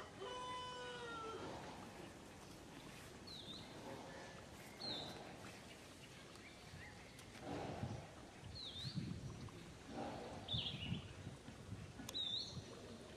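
Newborn long-tailed macaque giving a few short cries, mostly in the second half. Small birds chirp now and then, and a rooster's crow trails off in the first second or so.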